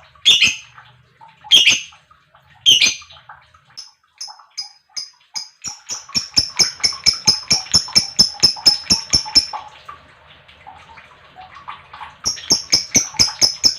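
Lovebird calling: three loud, harsh squawks in the first three seconds, then a long, fast run of sharp, high chirps, about four or five a second. A short pause follows, and another fast run of chirps starts near the end.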